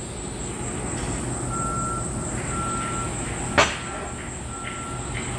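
A single sharp metal clank about three and a half seconds in as the steel sprocket and tube are handled on the steel welding table. It sits over steady shop background noise with a constant high whine and a short beep repeating about once a second.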